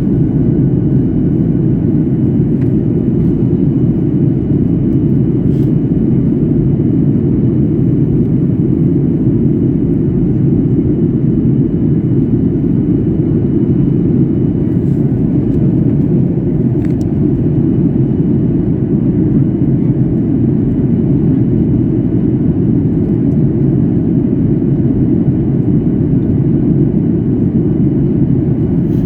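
Steady low rumble of an airliner heard from inside the passenger cabin during the approach to landing: engine and airflow noise, with a faint steady high tone and a few faint clicks.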